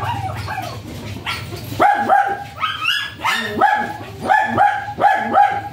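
A small dog barking and yipping in quick, high-pitched bursts. A few calls come at the start, then a rapid string of about three a second begins about two seconds in.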